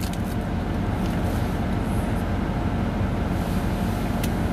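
Pickup truck engine idling, heard inside the cab as a steady low rumble, with a couple of faint clicks.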